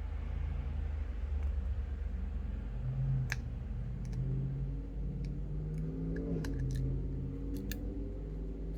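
A few small, sharp clicks of a screwdriver tip working a tiny phone screw, over a steady low hum and a drone that shifts in pitch from about halfway through.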